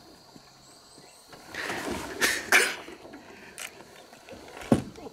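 Water splashing as a large black bass is grabbed by the lip and lifted out of the water by hand, with two louder splashes about two seconds in. A single sharp knock near the end.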